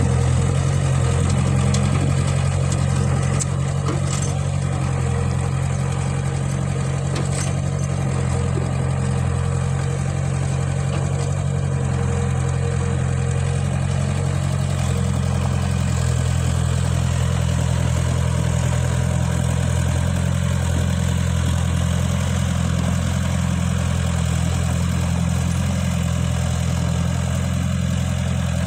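Caterpillar E70B excavator's diesel engine running steadily with a low, even drone.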